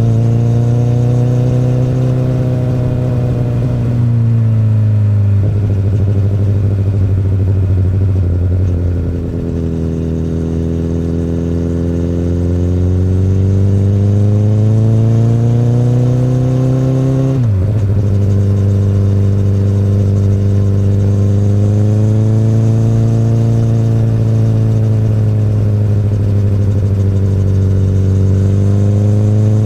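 2008 Honda CBR1000RR (SC59) inline-four engine through an Akrapovic exhaust, ridden on the road: the note eases off and picks up again, climbs steadily for several seconds, then drops sharply at a gear change a little past halfway and runs steady after.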